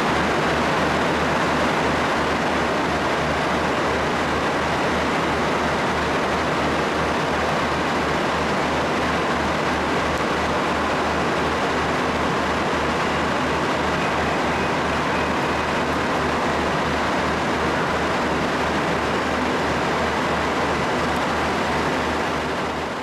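Train running: a steady rushing noise with a fast, regular low pulsing underneath. It fades out near the end.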